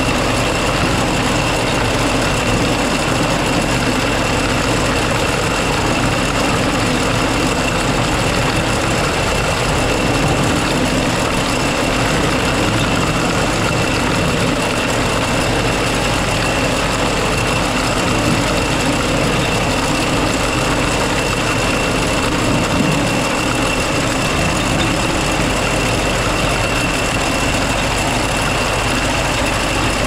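Engine-driven harvest machinery running steadily under load, with a constant high whine over the engine.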